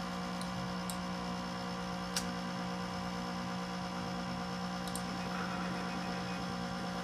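Macintosh SE and its external 30 MB hard drive running, giving a steady, very loud fan hum with a constant low tone. The owner believes the fan noise is abnormal. A few short clicks sound over it, the clearest about two seconds in.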